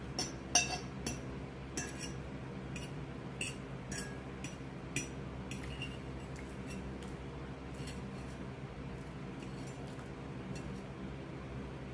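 Cutlery clinking and tapping against dishware during a meal: a run of light, ringing clinks, frequent for the first six seconds or so and then sparser, over a steady low hum.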